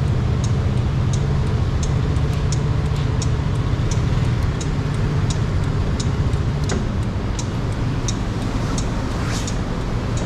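Motor scooter engine running steadily at low speed, with an even, sharp ticking about one and a half times a second.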